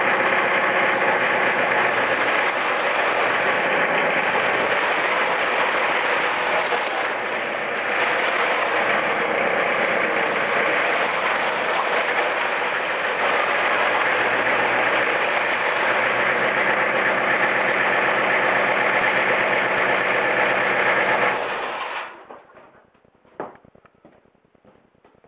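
Homemade tractor's Toyota diesel engine running steadily, then shut off about 22 seconds in. A few faint knocks follow.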